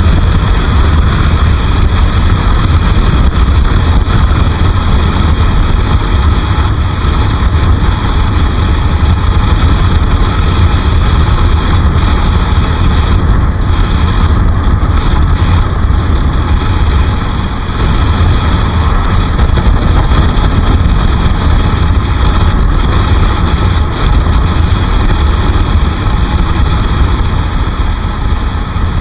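Bajaj Pulsar RS 200's single-cylinder engine running steadily while the motorcycle is ridden, near the end of its break-in, with a loud, constant low rumble; the level dips briefly about 17 seconds in.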